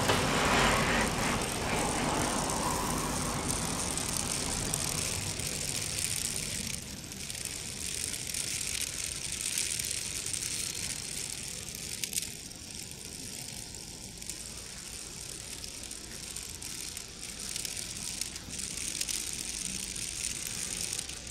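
Small plastic toy car rolling over stone paving tiles, its wheels rattling, against a steady outdoor hiss. The sound is somewhat louder for the first few seconds, then eases.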